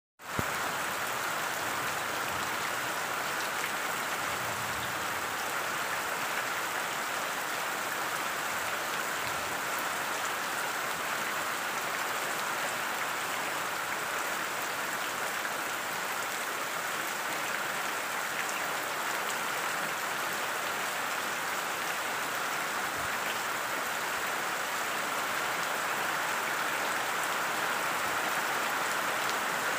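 Steady rain falling: an even hiss of many drops that never lets up.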